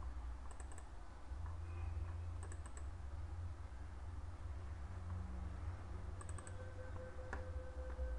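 Computer mouse clicking: three quick double-clicks, about half a second in, near three seconds and past six seconds, over a low steady hum. A faint steady tone starts shortly after the last double-click.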